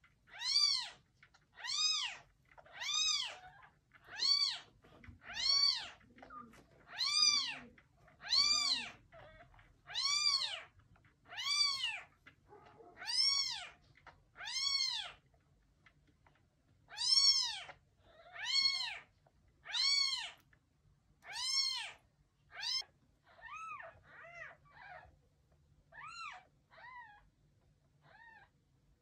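Young kitten mewing over and over, high calls that each rise and fall in pitch, about one a second, growing fainter and more ragged near the end.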